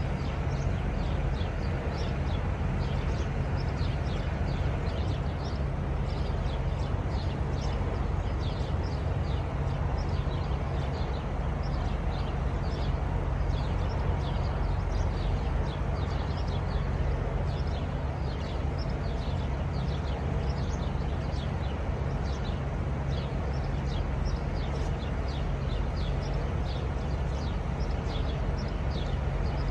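Steady low rumble of parked semi-trucks' diesel engines idling, with a short high chirp repeating every second or so above it.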